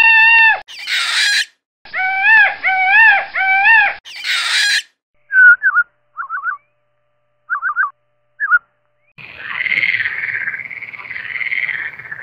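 Indian peafowl (peacock) calling: a loud, drawn-out wailing call, then three shorter wavering calls, with two harsh noisy bursts between them. A few short chirping trills follow. About nine seconds in, a frog starts a rasping, repeated croaking.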